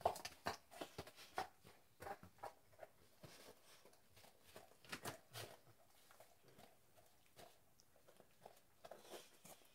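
A dog eating hamburger meat off a paper plate: quiet, irregular wet smacks, licks and chewing clicks, several a second, with busier stretches near the start, about halfway and near the end.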